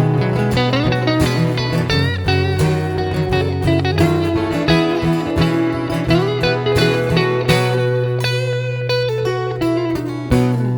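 Instrumental break in a blues song: a lead guitar plays gliding, bending notes over steady low bass notes.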